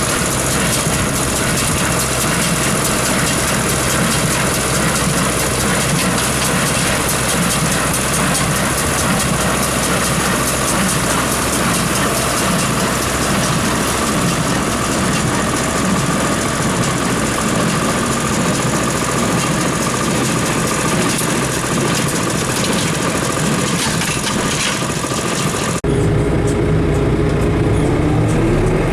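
Engine running steadily under a loud rushing noise. Near the end it cuts abruptly to a different engine sound whose pitch rises, as when the engine speeds up.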